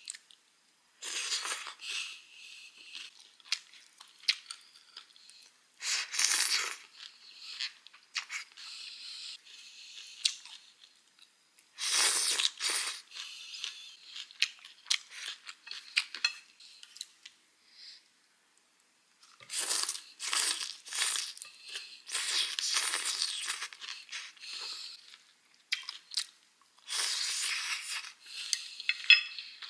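A person eating bún bò Nam Bộ, noodles with beef and crisp raw vegetables: noodles slurped and vegetables crunched and chewed in bursts of a second or several, with short quiet pauses between mouthfuls.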